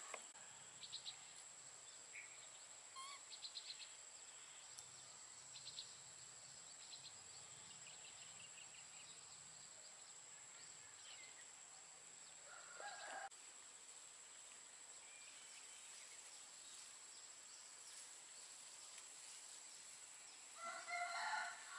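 Faint rural outdoor ambience: scattered short bird chirps over a steady high-pitched whine. A distant rooster crows briefly about two-thirds of the way through and again near the end.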